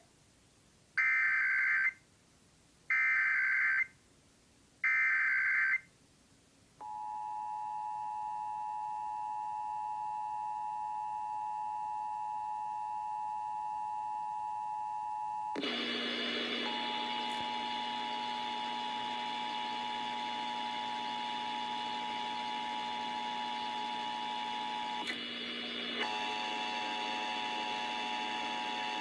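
Emergency Alert System Required Monthly Test: three one-second bursts of SAME header data, a rapid warbling digital tone, a second apart, then the EAS two-tone attention signal (853 and 960 Hz sounding together) starting about seven seconds in and holding steady. About halfway through, a fuller, buzzier layer joins under the attention tone.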